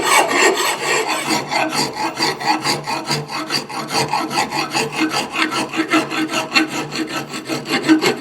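Vintage hand file being pushed across the steel bit of an axe head, putting an even edge on it. A steady run of rasping file strokes, the file biting well into the steel.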